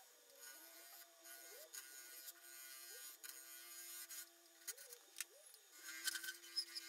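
Turning gouge cutting a resin-cast mallee burl blank spinning on a wood lathe: a faint hissing scrape with scattered ticks of flying shavings, growing louder near the end. Underneath runs a steady low tone that swoops in pitch now and then.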